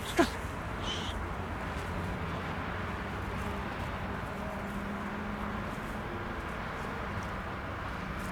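A single short call that falls quickly in pitch, about a quarter-second in, over a steady background hiss.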